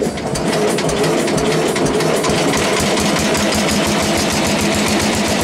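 A small petrol engine catches on a very cold start and settles within about half a second into a fast, steady run on choke.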